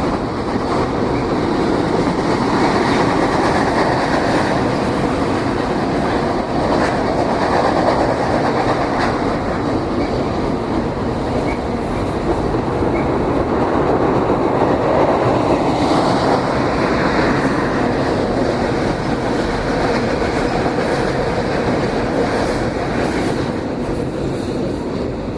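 A train passing close by: railcar wheels rolling steadily over the rail joints with a clickety-clack, loud throughout.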